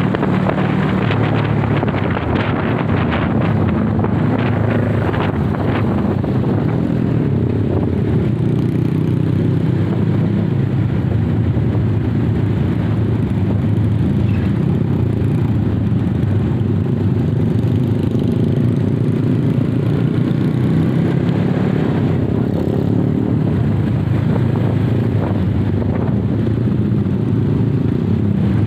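Honda CB motorcycle under way at a steady cruise: engine running evenly with road and wind noise.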